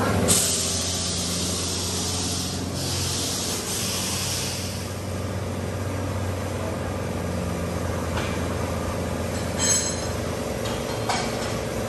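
A vehicle engine idling with a steady low hum. Over it, a burst of air hisses from just after the start for about five seconds, and a few light clicks come near the end.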